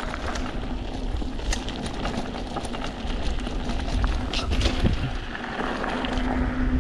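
Steady low rumble, with a constant low hum running under it and scattered light clicks and taps.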